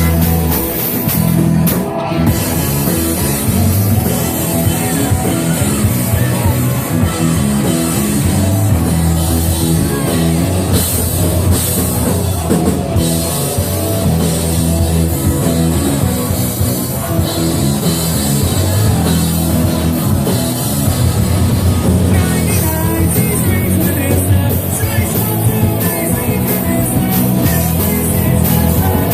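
Live rock band playing loudly, with drum kit, guitar and singing.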